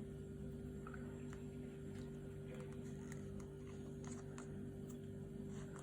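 Quiet room tone with a steady low electrical hum and a few faint, scattered clicks.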